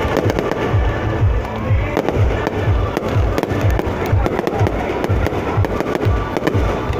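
Aerial fireworks bursting in quick succession, a continuous run of low booms and sharp crackles, with music playing underneath.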